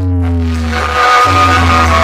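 Bass-heavy electronic music played loud through a DJ sound system on sound check. Long, deep bass notes each slide slightly down in pitch, and a new one starts about every 1.2 seconds.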